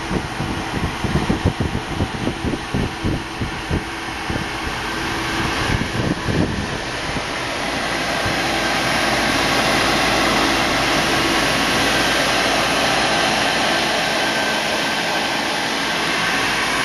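Steady hiss of a Stratasys Dimension BST 768 3D printer's fans running while the machine idles. Irregular low thumps and rumbling sit under it for the first seven seconds or so, after which the fan noise runs on alone, a little louder and even.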